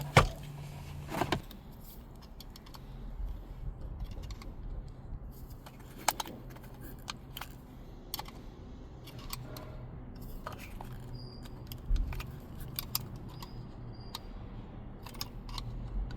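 Scattered clicks and clinks of small metal and plastic parts as a seatbelt pretensioner assembly is handled and worked on, with a few louder knocks near the start and about twelve seconds in. A low steady hum runs underneath.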